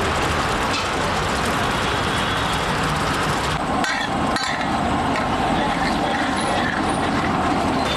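Steady cooking noise from a large flat iron tawa with red gravy heating on it. A metal spatula clinks and scrapes against the tawa a few times about four seconds in.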